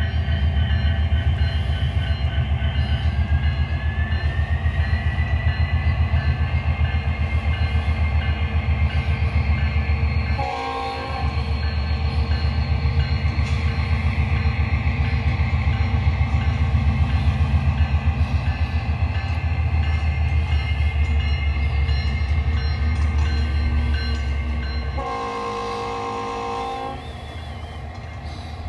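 Onboard sound system of an MTH HO-scale BNSF SD70ACE model locomotive playing a diesel prime mover's steady throbbing rumble. A multi-note air horn sounds once briefly about ten seconds in and again for about two seconds near the end.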